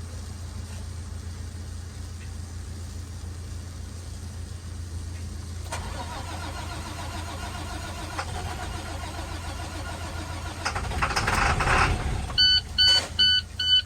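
Large diesel truck engine running with a steady low rumble that grows louder and rougher about eleven seconds in. Near the end a loud electronic alarm beeps rapidly, a few beeps a second.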